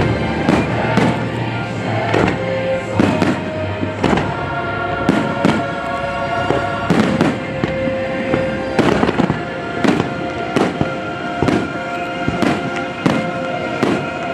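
Fireworks shells bursting in quick succession, about two bangs a second, over loud music.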